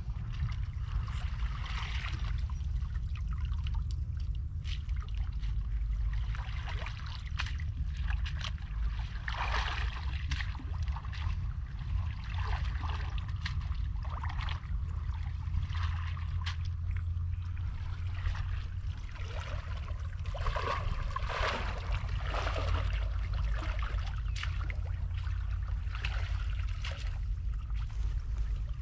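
Shallow water trickling and splashing, with scattered small splashes and clicks coming and going over a steady low rumble.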